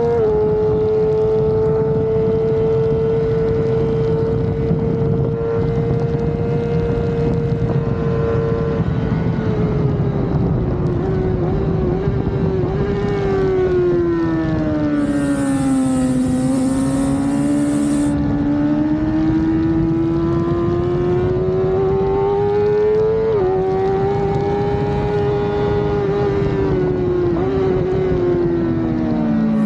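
Suzuki GSX-R600 inline-four sportbike engine revving high on track, with wind noise. It holds a steady high pitch for the first several seconds, then the revs fall to their lowest about halfway through and climb back. Two short dips in pitch come in the second half.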